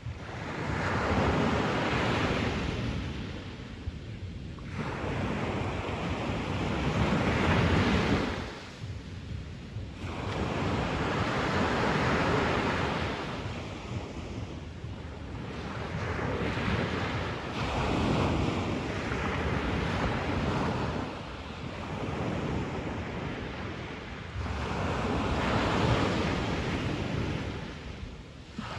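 Sea waves breaking on a beach and washing back: about six surges that swell and fade in turn, a few seconds apart.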